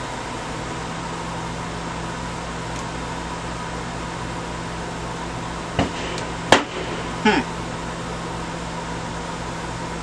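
RV rooftop air conditioner running on low cool, its fan blowing steadily over a low hum as the compressor runs. A few brief clicks and knocks come about six to seven seconds in.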